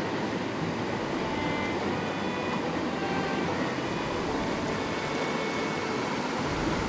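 Mountain stream water running steadily.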